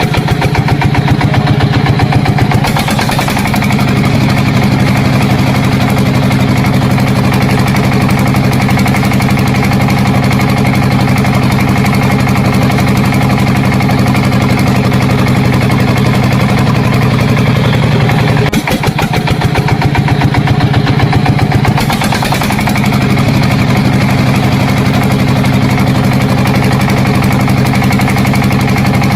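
Small engine of a homemade mini bulldozer running steadily. It dips briefly about eighteen seconds in, then runs a little harder for a few seconds.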